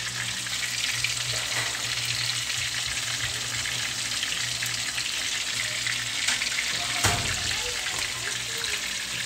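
Pork chop frying in a pan, a steady sizzle, with a single knock about seven seconds in.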